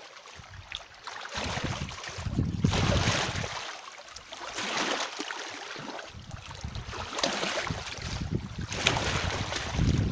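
Wind buffeting the microphone in rumbling gusts that swell and fade every two or three seconds, over a rush of open water.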